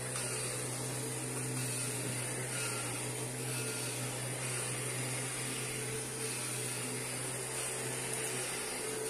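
Kirby G5 upright vacuum cleaner running steadily, a low motor hum under a high whine.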